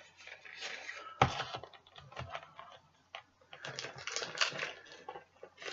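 Irregular light clicks and rustling from a plastic puzzle cube being handled.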